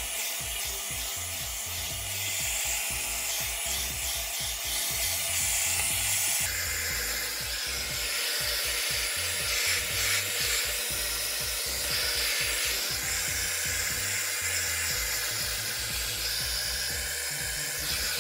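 Hand-held hair dryer running steadily, blowing air through hair as it is brushed; its sound shifts about six seconds in as the dryer is moved.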